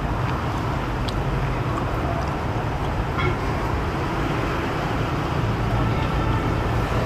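Steady rumbling background noise, with a few faint clinks of chopsticks against a ceramic bowl.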